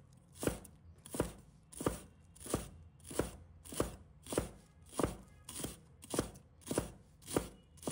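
Chinese cleaver chopping spring onions on a wooden cutting board, in a steady rhythm of knocks about every 0.6 seconds.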